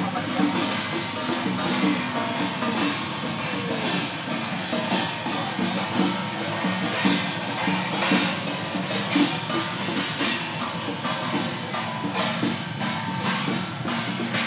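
Chinese temple-procession percussion: drums, gongs and cymbals struck continuously in a dense beat, with some gongs left ringing, over the noise of a street crowd.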